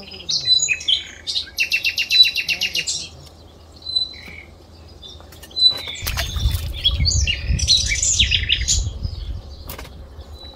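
Birds chirping and whistling, with a fast trill of repeated notes for about a second and a half near the start. About six seconds in, water splashes beside the platform and a low rumble runs for a few seconds under the calls.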